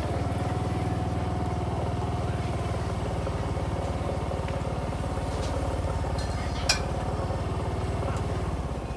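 Small motor scooter engine running close by at low speed, a steady low hum, with one sharp metallic clink about seven seconds in.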